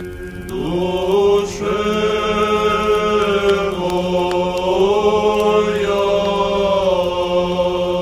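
Background music: sung chant over a steady low drone. About half a second in, a voice glides in and holds long notes, moving up and down between them every second or two.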